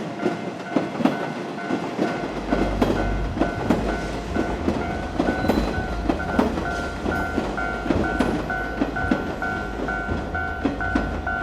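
Japanese railway level-crossing warning bell ringing in a steady pulsing beat, about twice a second, as a Meitetsu train passes. A low rumble starts about two seconds in, with a rapid, uneven run of loud wheel clacks over the rail joints.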